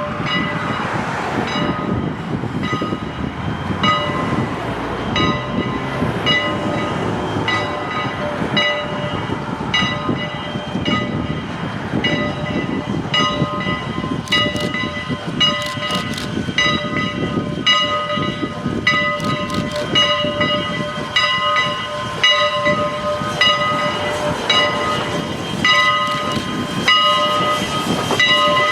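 Steam-hauled passenger train running, the rumble and clatter of the locomotive and cars under a ringing tone that repeats about once a second.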